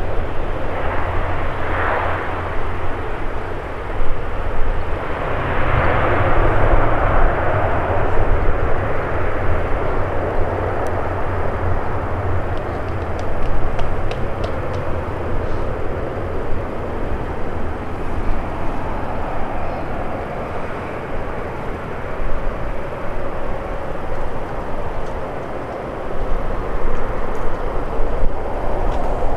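Jet airliner engines running: a steady, loud rush of noise that swells about 2 seconds and 6 seconds in.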